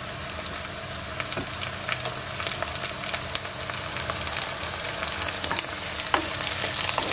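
Onions, garlic, green chillies and chopped tomatoes sizzling in hot oil in a clay pot, a steady crackle with scattered pops. Near the end a wooden spatula starts stirring them and the sizzle grows a little louder.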